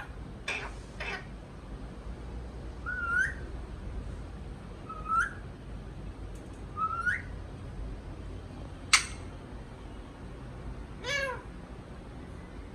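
Ringneck parrot calling: two short pitched calls at the start, then three short rising whistles about two seconds apart, a sharp brief call about nine seconds in, and another call near the end.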